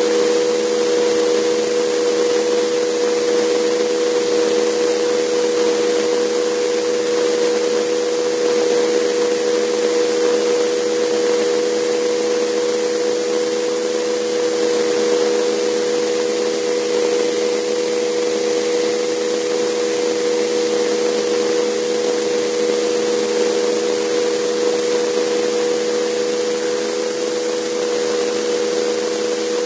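The Jetcat PTH-2 kerosene turboshaft turbine and rotor of a Vario Alouette II radio-controlled helicopter running steadily in flight, heard from on board: an even rushing hiss with a steady hum underneath.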